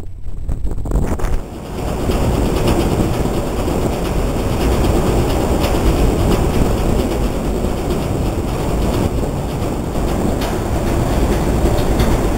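Wind buffeting the microphone on a ferry's open deck over a steady low rumble, dipping briefly about a second and a half in before holding steady.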